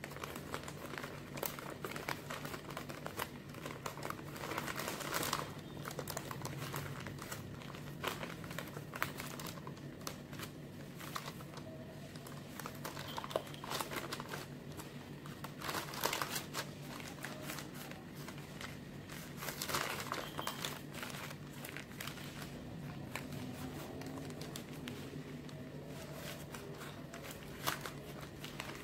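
Baking paper rustling and crinkling as it is peeled off a baked sponge sheet by hand, in irregular bursts that come every few seconds, over a steady low hum.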